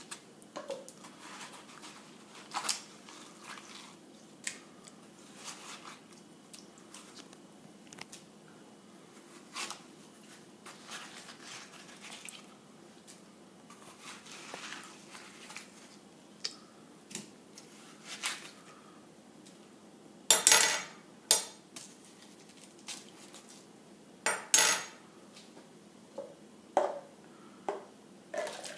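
A metal spoon scraping and scooping watermelon flesh out of the rind, with irregular scrapes and clicks. A few sharper, louder clatters stand out about two-thirds of the way through.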